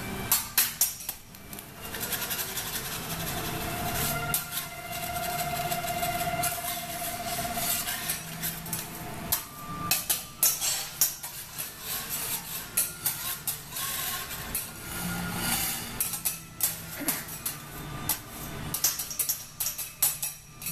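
Metal spatulas clinking, tapping and scraping on a steel teppanyaki griddle. The strokes come in quick, uneven runs, thicker in the second half, over a steady low hum.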